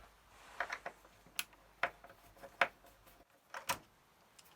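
Hard plastic and metal parts of a dot-matrix printer clicking and knocking as they are handled and worked loose during disassembly: about half a dozen sharp, irregular clicks.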